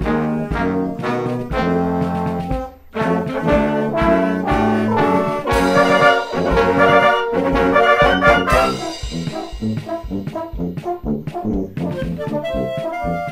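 Wind band playing a film theme with the brass to the fore. There is a brief break about three seconds in and the band is at its loudest around the middle. Near the end the texture thins to lighter, detached notes from clarinets and saxophones as the brass drops out.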